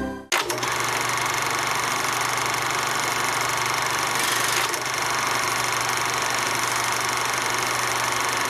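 A steady machine-like running noise with a constant low hum and a hiss, cutting in suddenly just after the start and holding unchanged.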